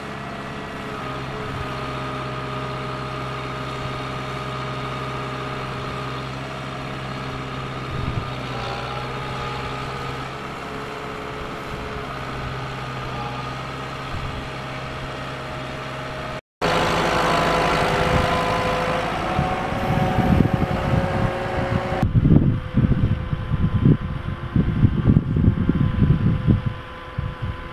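Farm tractor's diesel engine running steadily. About halfway through the sound cuts, and the engine is heard fainter, with wind buffeting the microphone in heavy gusts.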